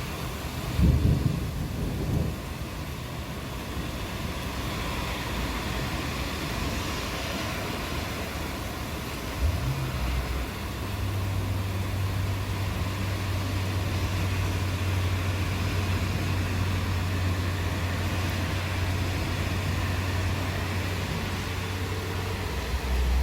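Steady rain hiss, with short deep rumbles about a second and two seconds in and again near ten seconds. A steady low drone runs from about eleven seconds until near the end.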